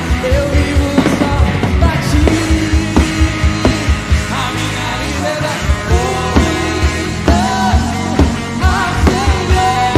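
Worship band playing a song with a singer over a steady drum beat.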